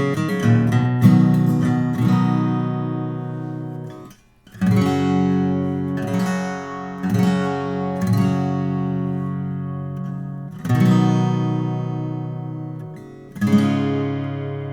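Martin 00-28 Modern Deluxe acoustic guitar playing chords, each struck and left to ring out, with a short break in the sound about four seconds in.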